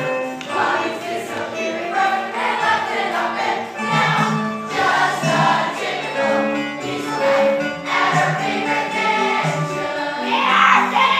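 Stage musical cast singing together as an ensemble over instrumental accompaniment with a rhythmic bass line; the singing swells loudest near the end.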